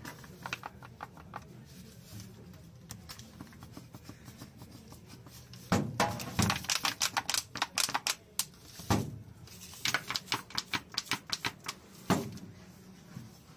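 Rapid runs of sharp plastic clicks and taps as green plastic squeeze bottles of sauce are handled, shaken and squeezed over bowls, sparse at first and busiest from about six seconds in.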